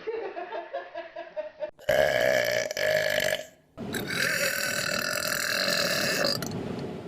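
Three loud, drawn-out burps one after another, with an abrupt change in sound between each; the last is held steadily for about two and a half seconds.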